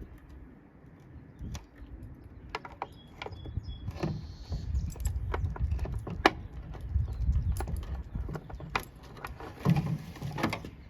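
Irregular light clicks and taps of car light bulbs and a plastic bulb socket being handled and fitted, over a low rumble.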